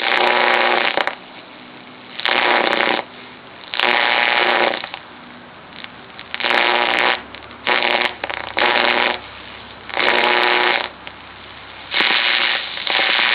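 Vacuum-tube AM radio's loudspeaker putting out repeated bursts of buzzing interference noise, each under a second long and roughly one to two seconds apart, with a quieter hiss in between. The noise comes across the dial on AM, where reception is weak.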